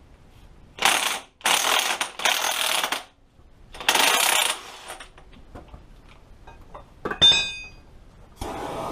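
Aerosol spray can hissing in four short bursts, sprayed onto a motorcycle's engine sprocket nut. A brief metallic clink rings out a few seconds later, and a steady rushing noise starts near the end.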